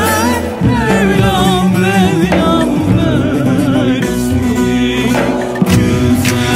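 Turkish folk music: a wavering melody with strong vibrato, with singing, over steady bass notes and an ensemble accompaniment.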